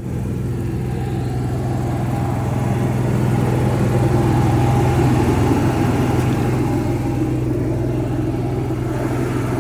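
A motor running steadily with a constant low hum, growing a little louder towards the middle and easing off later.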